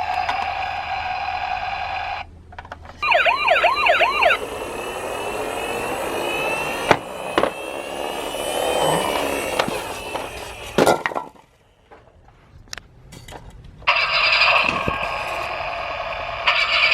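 Toy ambulance's electronic siren sound: a steady electronic tone, then about a second of fast up-and-down wailing a few seconds in, followed by noisier stretches with sharp clicks and knocks of plastic. The sound drops to near quiet for a few seconds before the steady tone returns near the end.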